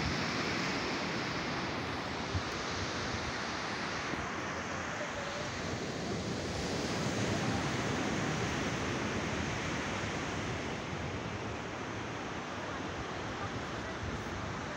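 Steady rush of ocean surf on the beach, swelling a little midway.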